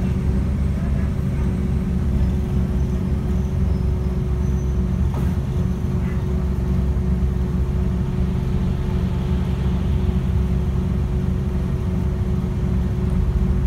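Bus engine idling steadily, heard from inside the passenger cabin: a low drone with a constant hum over it.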